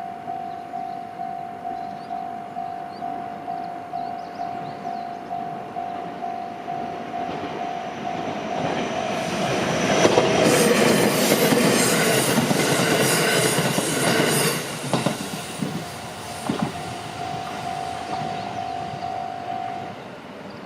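Japanese level-crossing alarm ringing about twice a second while an electric train passes over the crossing. The train is loudest about ten to fourteen seconds in and then fades with a few knocks. The alarm keeps ringing after the train is gone and stops near the end.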